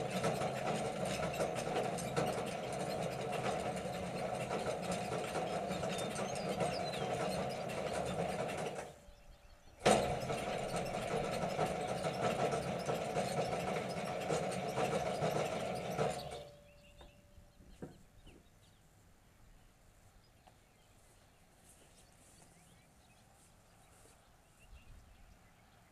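Hy-Hoe 685B excavator's diesel engine cranked on its electric starter in two tries, about nine seconds and then about six seconds, without catching. The second try begins with a sharp clunk as the starter engages. Each try stops abruptly, with a short whine as the starter spins down.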